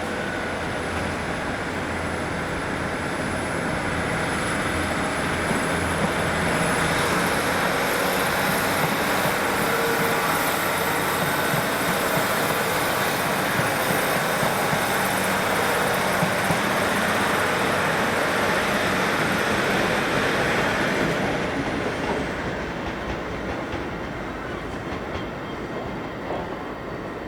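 Train running along the station tracks: steady wheel and running noise that swells over several seconds, holds, then fades away about 22 seconds in. A thin high whine rises about 8 seconds in and drops away as the train noise fades.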